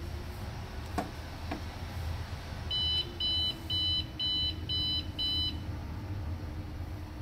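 Two clicks about a second in as a battery lead connector is plugged in, then the UPS's buzzer gives six short high beeps, about two a second, over a steady low hum.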